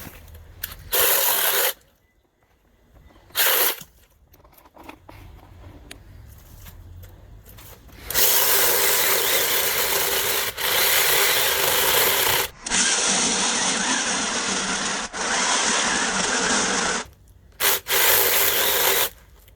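Small, cheap electric chainsaw cutting into wood: two short bursts in the first four seconds, then longer cuts with a few brief pauses through the second half. The saw has no oil feed and is running hot.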